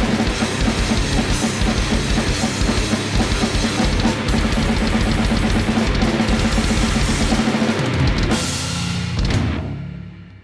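Tama drum kit with an 18-inch kick drum and a Mapex metal snare played in a fast, dense grindcore beat of kick, snare and cymbals. Near the end the playing stops and the last hits ring out and fade.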